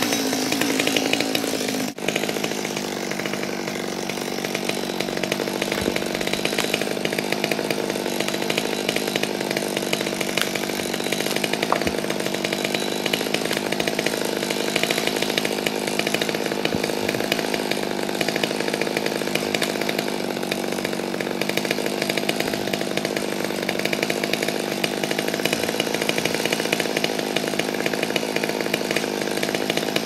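Chainsaw engine running steadily, with a brief dropout about two seconds in.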